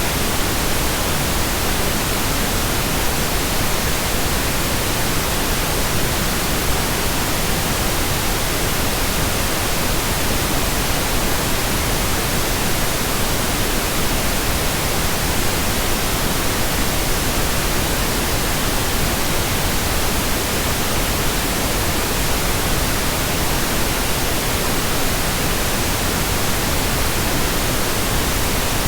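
Steady pink noise: an even, unchanging hiss that spreads across all pitches, at a constant level.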